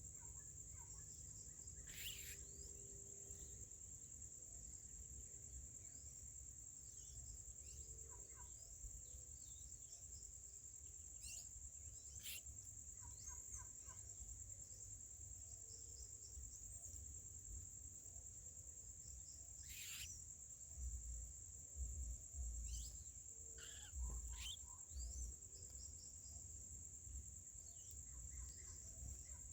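A steady high insect trill, like crickets, with scattered short bird chirps and calls over it. Several low rumbles come about two-thirds of the way through.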